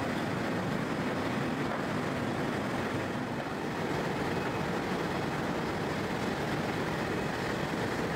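Open-flame rotational moulding machine running: a row of gas burners firing under the turning water-tank mould, heard as a steady, even rush of noise with no distinct beat.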